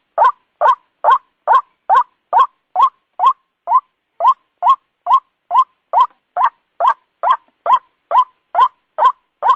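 White-breasted waterhen calling, a monotonous string of short, identical notes repeated about twice a second.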